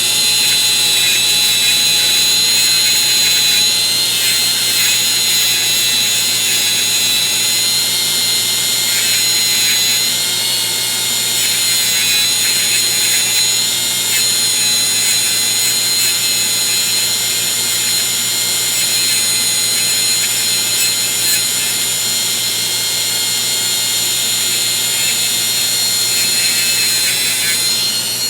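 An electric polishing tool runs steadily while a part of a Craftsman 3/8 ratchet is polished. It winds down right at the end.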